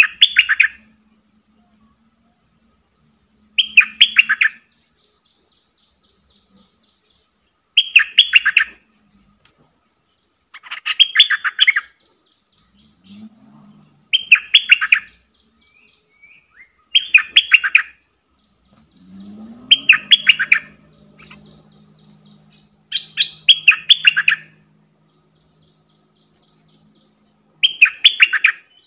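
A bulbul singing short bubbling phrases of rapid notes, about a second each, repeated nine times at intervals of three to four seconds.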